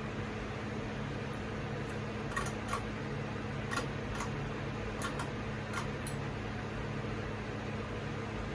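Hampton Bay Tripoli ceiling fan running, a steady motor hum over the noise of moving air. A scattering of about ten light clicks comes in the middle few seconds.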